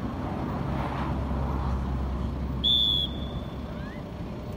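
A single short referee's whistle blast about two and a half seconds in, one steady high tone lasting about half a second, over a low steady rumble.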